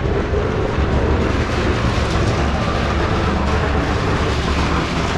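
A steady, loud low rumble with hiss throughout, under faint background voices.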